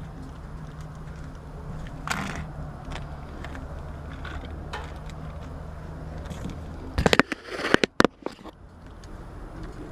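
A steady low mechanical hum, then a quick cluster of loud knocks and clatter about seven seconds in.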